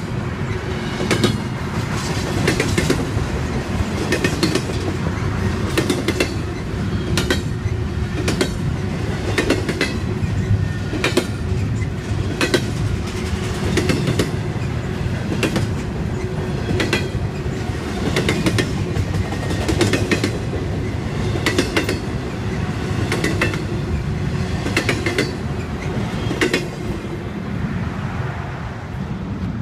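CSX double-stack container freight train rolling past, its wheels clacking over rail joints about once a second over a steady rumble. The sound thins out near the end as the last cars go by.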